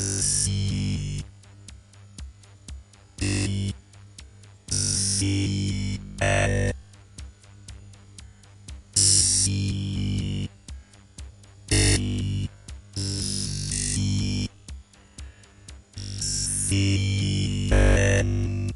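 Synthesized sci-fi sound effects played one after another: about eight separate electronic bursts, heavy in the bass, each lasting from half a second to a couple of seconds, with short pauses between them.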